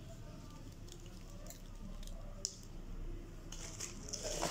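Faint rustling and scraping of gritty potting mix of pumice, zeolite and coconut coir, scooped with a small flower pot from a plastic bowl, with scattered light clicks, one sharper about halfway through.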